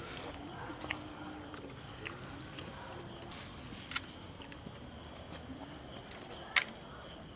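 Steady high-pitched insect trilling. A few short clicks sound over it, the sharpest about two-thirds of the way through.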